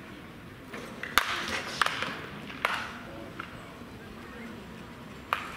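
Several sharp cracks of wooden bats hitting baseballs in batting practice, spaced irregularly, the loudest about a second and a quarter in and just before the end. Voices chatter in the background.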